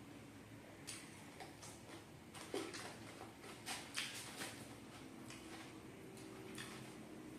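Close-up eating sounds of someone chewing fried chicken: irregular wet mouth smacks and clicks, a few sharper ones in the middle.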